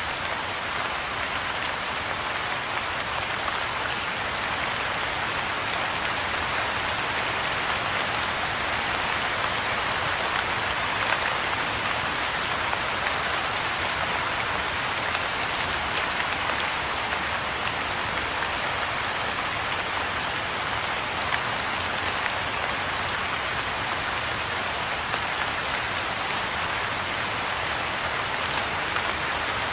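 Soft rain falling steadily on a pond and the grass and bushes around it: a dense, even hiss of drops that does not let up.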